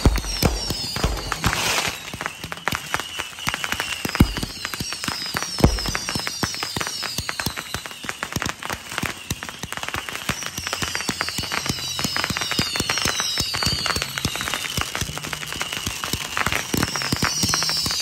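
Aerial fireworks going off: dense crackling throughout, a few deep bangs in the first six seconds, and several falling whistles.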